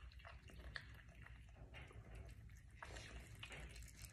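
Faint, irregular wet smacking and chewing of a Virginia opossum eating soft food such as yogurt and fruit from a plate.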